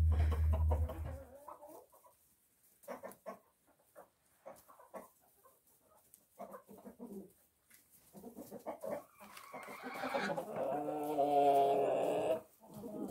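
Chickens clucking, with short scattered calls, then a louder drawn-out call from about ten seconds in that cuts off near the end. A low rumble stops about a second in.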